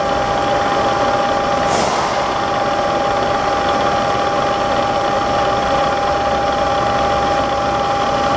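Bridgeport EZ Trak DX milling machine running, a steady mechanical hum with a constant whine, as its table traverses along the X axis. A short falling swish about two seconds in.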